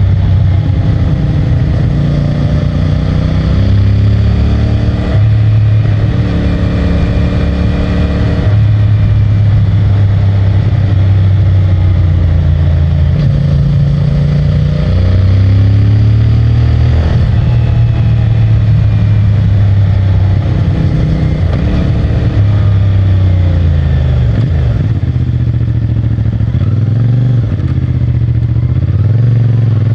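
CFMOTO 450MT's parallel-twin engine running under way through its stock exhaust. The engine pitch steps up and down several times in the first half as the rider changes gears and throttle, then rises and falls more freely in the second half.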